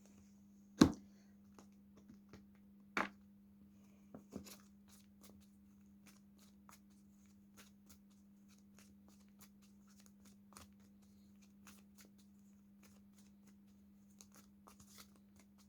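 A deck of tarot cards being shuffled by hand: a run of faint, quick card ticks with a few sharper knocks, the loudest about a second in. A faint steady hum runs underneath.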